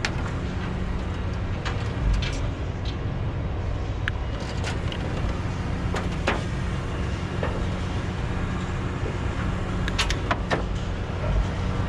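A vehicle engine idling steadily, with scattered sharp clicks and knocks from handling scrap, a cluster of them about ten seconds in.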